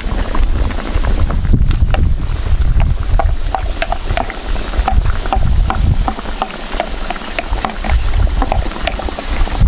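Fish broth simmering in a metal wok, with many small bubbles popping irregularly over a steady low rumble.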